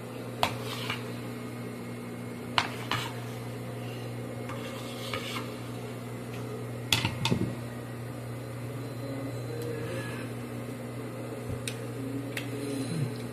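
A steady low mechanical hum, with a handful of sharp clinks and knocks scattered through it.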